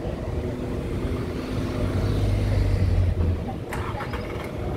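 A motor vehicle passing on a city street, its low engine rumble swelling and then dropping away, with a few short sharp clicks near the end over general street noise.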